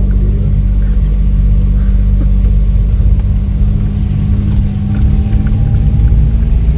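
Car driving slowly, a steady low engine and tyre rumble heard from inside the cabin, with a few faint small clicks.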